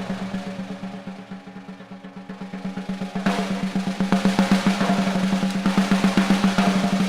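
Drum kit solo: a fast, even roll on the drums that fades to soft about two seconds in, then swells back up and grows brighter and louder from about three seconds in, with a drum's steady ring underneath.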